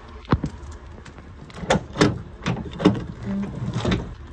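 Tailgate of a 2008 Chevrolet Avalanche pickup being unlatched and lowered: a sharp click of the handle and latch, then a run of separate clunks and rattles as the gate swings down.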